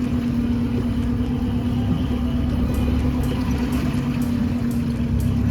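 Charter fishing boat's engine running steadily: a constant hum with a low rumble beneath it.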